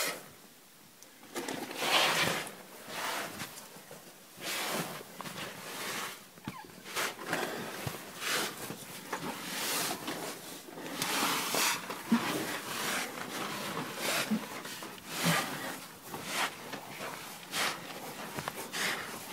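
Scraping and rustling of clothing and body against cave rock as a person crawls through a tight passage, in irregular bursts about once a second, mixed with breathing.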